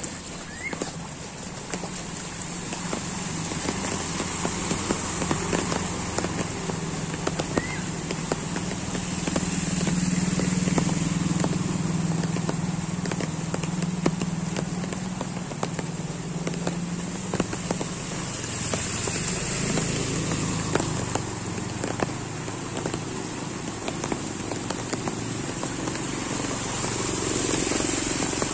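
Steady rain with many crackling drop hits, and motor scooter engines running low as they ride through the floodwater, loudest from about ten to seventeen seconds in and again near the end.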